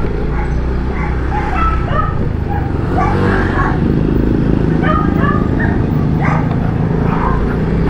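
Steady motorcycle engine and road noise while riding, with dogs barking repeatedly over it.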